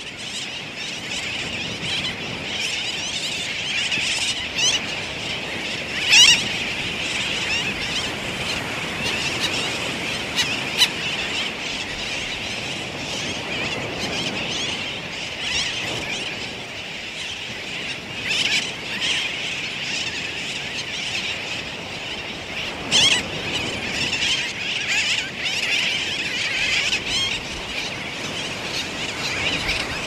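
A large colony of sooty, noddy and fairy terns calling all at once, a dense unbroken chatter of high squealing calls. A few louder calls from nearby birds stand out above it, about six seconds in and again about twenty-three seconds in.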